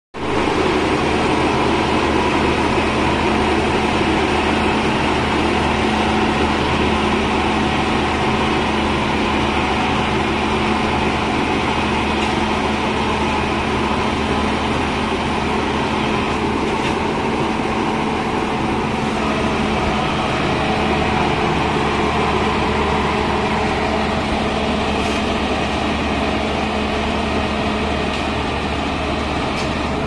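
Asphalt paver finisher's diesel engine running steadily, a constant drone, with a few faint clicks.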